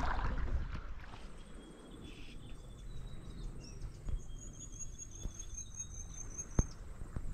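Outdoor countryside ambience: a low steady hiss with runs of high, rapid chirping calls through the middle and one sharp click near the end.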